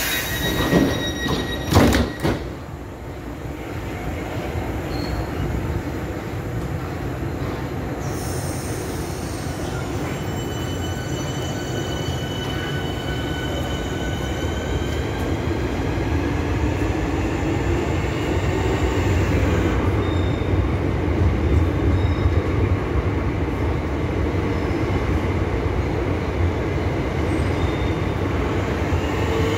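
Southeastern Class 465 Networker electric train pulling out of the platform. From about eight seconds in, its traction motors whine in several tones that rise together, over a growing low rumble of wheels on the rails. A couple of sharp knocks come in the first two seconds.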